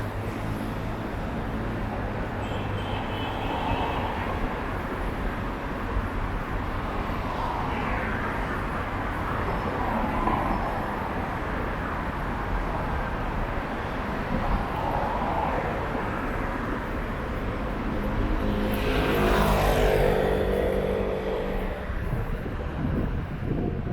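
City street traffic: a steady wash of passing cars, with one vehicle going by close about nineteen seconds in, its pitch dropping as it passes.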